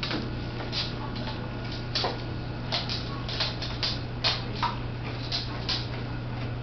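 Small dog sniffing and snorting in about a dozen quick, irregular bursts, over a steady low hum.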